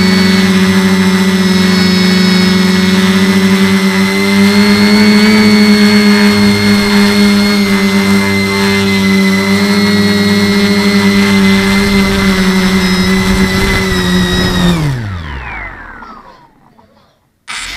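A home-built H-frame quadcopter's four 1050 kV brushless motors with 9x5 props run steadily in a hover, heard close up from the camera mounted on the frame. About fifteen seconds in, the motors spool down with a falling whine as it sets down on the carpet. They go silent for about a second, then start to spin up again with a rising whine at the very end.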